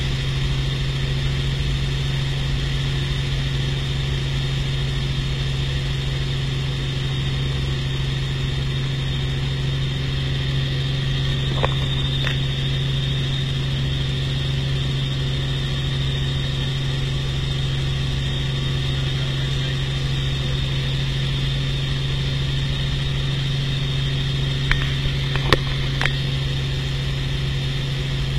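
Helicopter engine and rotor drone heard inside the cabin in flight, a steady low hum. A couple of short clicks come midway, and a few more near the end.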